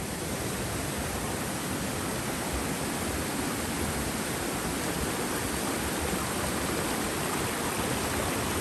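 Mountain stream rushing steadily over boulders, running high with lots of water.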